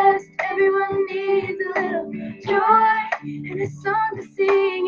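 A Christian worship song: a female singing voice over steady instrumental accompaniment, sung in short phrases with brief breaks between them.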